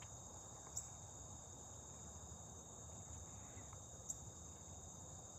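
Steady chorus of insects, a constant high-pitched trill, faint, with two brief clicks about a second in and about four seconds in.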